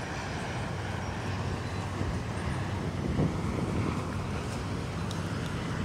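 Steady drone of a Dash 8-400 turboprop's engines and propellers as the airliner comes in low on short final approach.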